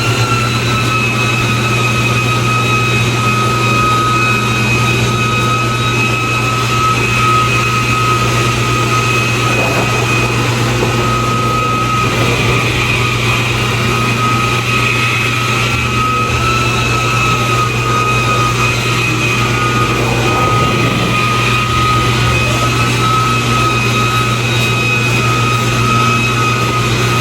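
Steady mechanical drone of running shop machinery: a constant low hum under an unbroken high-pitched whine, holding the same pitch throughout.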